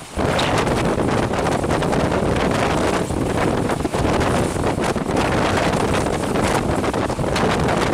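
Wind buffeting the microphone of a camera held out of a fast-moving passenger train, mixed with the steady rush of the train running along the track.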